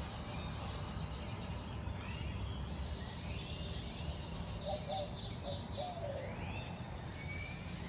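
Birds chirping in short rising calls, a few times, over a steady low rumble.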